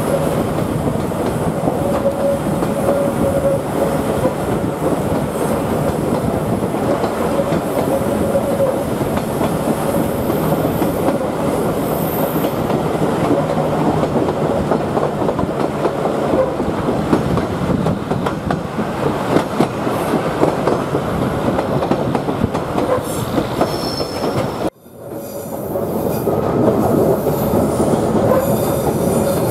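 Queensland Rail 2000 class rail motor running on a curving mountain line, its wheels squealing against the rails on the tight curves over a steady running rumble. Near the end the sound cuts out for a moment and resumes as heard from inside the driver's cab.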